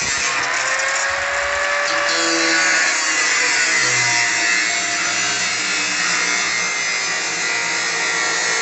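Electric power saw running steadily and loudly, cutting.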